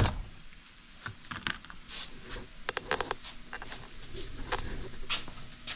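A sharp knock, then scattered clicks and taps of metal engine parts and tools being handled, with a quick run of clicks about three seconds in.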